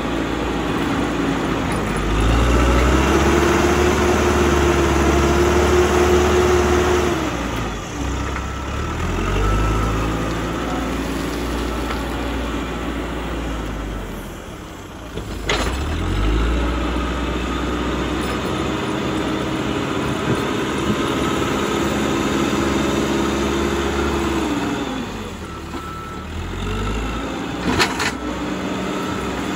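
Caterpillar 434E backhoe loader's diesel engine working under load as it pushes dirt with the front bucket. The engine note rises and holds twice for several seconds, then drops back. There are a couple of sharp knocks, one about halfway and one near the end, as the bucket tips out soil.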